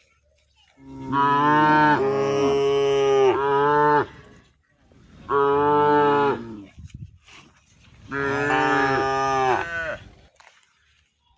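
Cow mooing: three loud, drawn-out moos, the first the longest and the second shorter.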